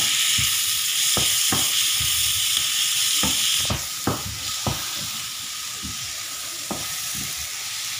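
Chicken hearts sizzling in oil in a frying pan while a wooden spatula stirs them, knocking and scraping against the pan at an uneven pace. The sizzle is louder for the first few seconds, then drops a little.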